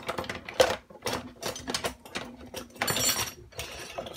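Metal silverware clinking and clattering against itself and the sink as it is hand-washed, in quick irregular knocks.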